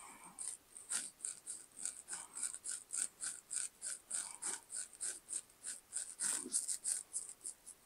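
Faint, tinny music leaking from Soundpeats Air5 wireless earbuds worn in the ears, mostly a quick steady beat of hi-hat-like ticks about three a second.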